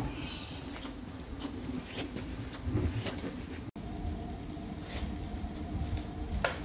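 Scattered knocks and clatter of plastic drain rods being gathered up and handled, over a low steady background hum that picks up a faint tone after about three and a half seconds.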